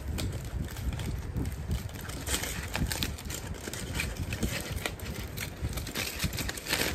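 Aluminium foil crinkling and rustling as it is peeled open by hand from around a wrapped burger, a steady run of small crackles.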